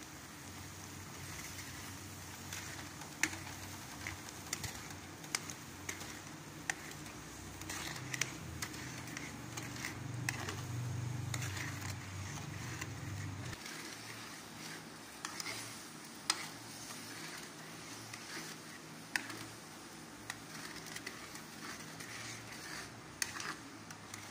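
Coconut milk and brown sugar boiling in a metal wok, bubbling and crackling, with a ladle scraping and clicking against the pan as it is stirred. A low steady hum runs underneath and cuts off about halfway through.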